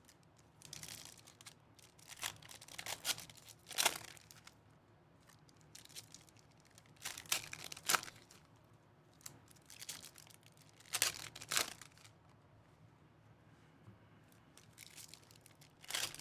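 Foil trading-card pack wrappers being torn open and crinkled, in a string of short tearing rustles with pauses between.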